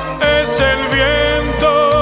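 Spanish pop ballad music: a sustained melody line with vibrato over a steady bass, with light cymbal-like hits and no words.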